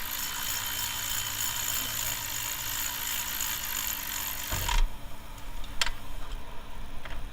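A power tool runs steadily for about five seconds and stops suddenly with a thump, followed by two sharp clicks.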